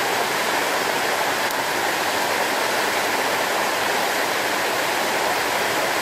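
Waterfall pouring down a rock face into a rocky stream: a steady rush of falling and splashing water.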